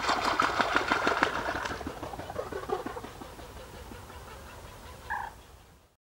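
Great cormorant taking off from the water: a rapid run of splashing wingbeats and foot patters that slaps the surface for about two seconds, then thins out and fades as the bird gets airborne. A short call sounds once near the end.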